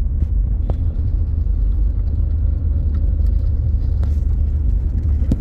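Steady low rumble of a car's engine and tyres heard inside the cabin while driving on an unpaved road, with a few faint knocks.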